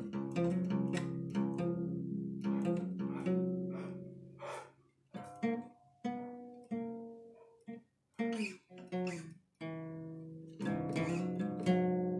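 Solo acoustic guitar played freestyle, strummed chords and picked notes ringing out, with short breaks between phrases.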